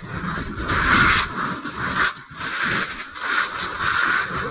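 Fire hose stream hitting burning RV wreckage: a loud rushing hiss and spatter that swells and eases several times as the stream sweeps across the fire.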